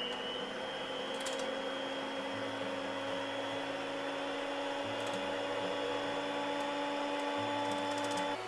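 Electric hand blender with a whisk attachment beating egg whites to stiff peaks in a tall plastic beaker. The motor gives a steady whine whose pitch creeps slightly upward, and it stops just before the end.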